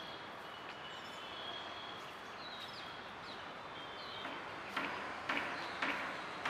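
Small birds chirping in short, repeated notes over a steady background of outdoor noise. Near the end come four short scuffing knocks about half a second apart, louder than the birds.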